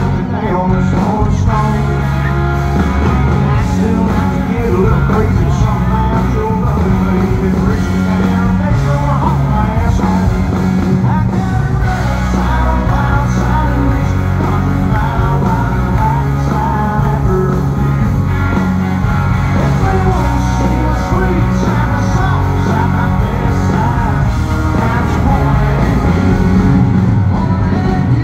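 Live country band playing loudly through a concert PA, with a male lead singer singing over electric guitars, bass and drums.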